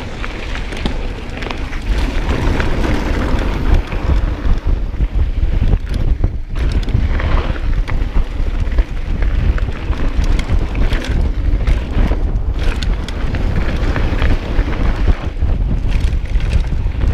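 Wind buffeting an action camera's microphone as a mountain bike rolls along a dirt and gravel track, with tyres crunching and the bike rattling over small stones.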